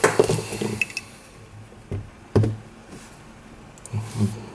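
Plastic pieces of a 3x3 speed cube being handled while the cube is taken apart: some rustling handling, then a few separate sharp plastic clicks.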